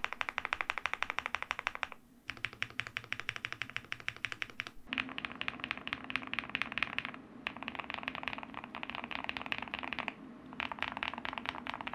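Fast typing on an Akko MU01 mechanical keyboard with a gasket-mounted wooden case, Holy Panda tactile switches and keycaps: a quick, continuous run of keystrokes. There are brief pauses about two, seven and ten seconds in.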